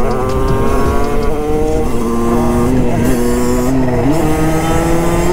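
Small-capacity two-stroke Derbi 50cc motorcycle engine running at part throttle at cruising speed. Its pitch sags a little over the first couple of seconds, then steps up about four seconds in.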